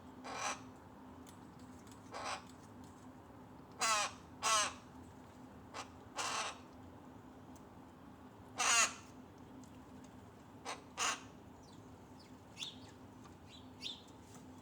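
Rook giving harsh, raspy caws, about seven short calls spread irregularly, the loudest a little past the middle, with a few faint short calls near the end over a faint steady hum.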